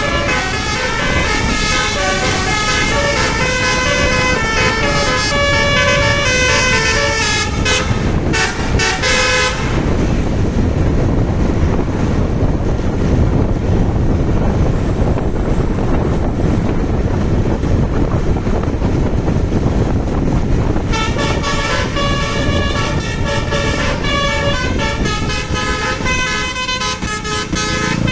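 A bus's basuri telolet horn playing a quick melody of stepping notes. About ten seconds in, the horn stops and only vehicle engine and road noise is left. The melody horn starts again about two-thirds of the way through.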